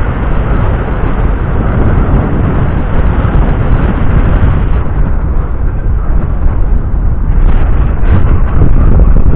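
Wind buffeting the microphone on the open deck of a ferry under way: a loud, steady rumble over the rush of the ship's wake, growing choppier near the end.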